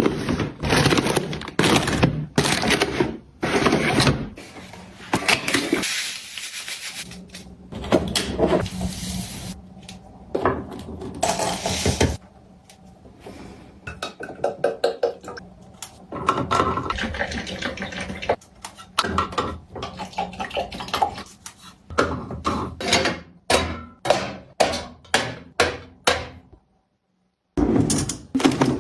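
Household items being handled and set down one after another: a quick run of clicks, taps and knocks with rustling handling between, cutting out for about a second near the end.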